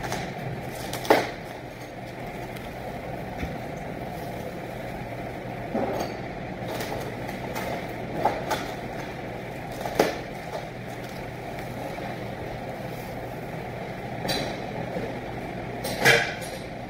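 A steady machine hum, with about six short knocks and clatters from a worker handling apples and wrapping them at a plastic film dispenser. The loudest knocks come about a second in and near the end.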